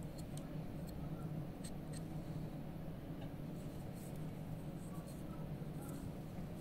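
Faint, scattered scratches of a wax carving knife shaving a block of dental carving wax, over a steady low hum.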